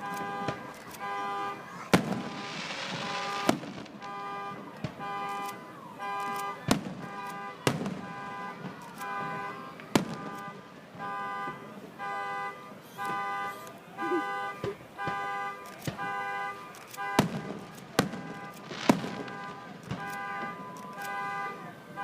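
Fireworks going off: sharp bangs every second or few, with a stretch of crackling about two seconds in. Under them a car alarm sounds rapid, repeated horn-like beeps throughout.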